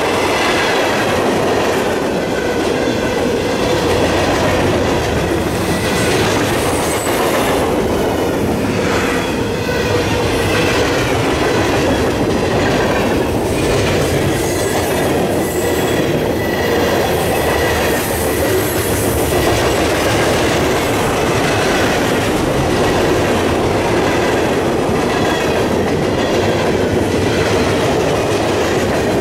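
Freight cars of a Norfolk Southern mixed freight train rolling past close by: steel wheels running over the rails in a steady, loud clatter, with a thin high squeal coming and going.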